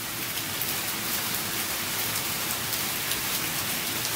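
Steady rain falling, an even hiss with faint patter of drops.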